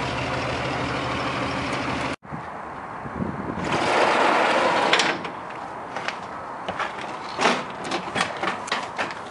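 A steady low mechanical hum from the running step van's refrigeration compressors and engine, cut off suddenly about two seconds in. Then a cab door slides with a long scraping rush, followed by scattered clicks and knocks as someone settles into the driver's seat.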